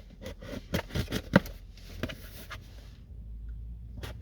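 A cardboard parcel and its packaging being handled and opened: rustling and scraping with a run of sharp clicks, the loudest about a second and a half in.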